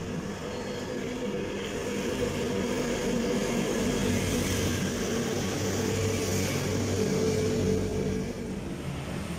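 Roadside traffic: a motorcycle engine passing close, growing louder for several seconds and then fading, over the running of other passing vehicles.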